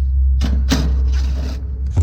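Two rough scraping, rubbing sounds of hands working on equipment, over a steady low rumble.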